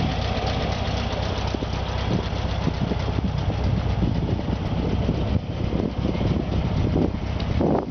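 VW Beetle's air-cooled flat-four engine idling steadily.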